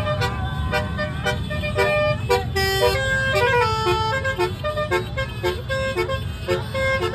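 A 'telolet basuri' multi-tone horn playing a quick tune of short notes that step up and down in pitch, over a steady low rumble.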